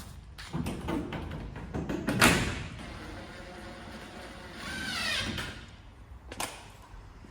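Scrapes and knocks of hand work on a greenhouse frame while the sheets are being bolted down. The loudest scrape comes about two seconds in, a short squeak about five seconds in, and a sharp knock near the end.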